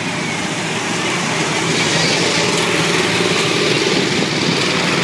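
Small petrol go-kart engines running on the track, getting somewhat louder about two seconds in.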